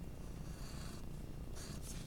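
Graphite pencil scratching across paper in shading strokes, one lasting about a second and a shorter one near the end, over a steady low rumble.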